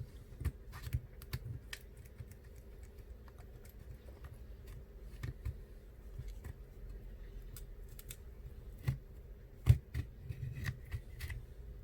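A pry tool clicking and scraping as it is worked around the edge of an iPhone X screen to separate it from the frame. The light clicks come at uneven intervals, the sharpest a little before the end, over a faint steady hum.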